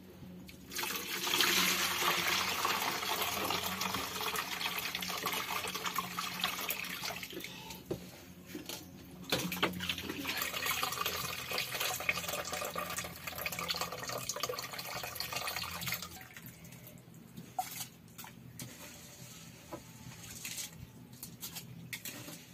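Water running and splashing, as when water is poured or something is washed in a basin or pot. About sixteen seconds in it drops away to a quieter stretch with occasional clicks and knocks.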